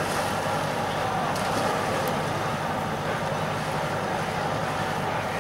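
Steady ambience of a water polo game: an even wash of pool noise with distant, indistinct voices.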